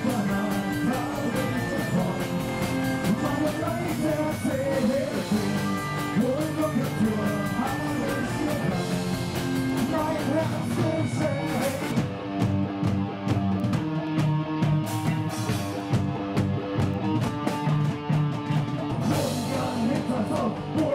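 Live rock band playing amplified electric guitars and a drum kit, with singing. Past the middle the cymbal wash drops away for several seconds and comes back near the end.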